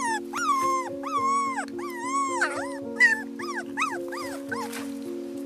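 A young puppy whining and crying in a run of high cries that rise and fall, some drawn out, the last few short, stopping about four seconds in. Background music with held notes plays underneath.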